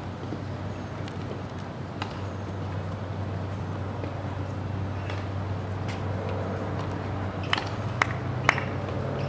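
Tennis ball bounced three times on a hard court, about half a second apart, before a serve, over a steady low background hum.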